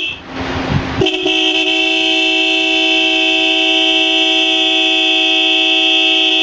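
Two Seger electric pressure horns, a lighter and a heavier one, blaring together as one steady, very loud, shrill tone. The tone cuts out at the start and comes back with a click about a second in, when the wire is touched back on.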